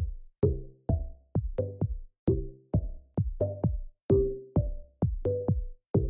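Electronic background music with a steady drum-machine beat, about two hits a second, each carrying a short low note.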